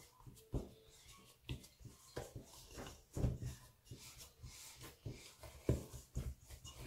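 Hands kneading soft, sticky yeast dough of flour and fine semolina in a stainless steel bowl: irregular soft slaps and squelches, the loudest about three seconds in and again near the end.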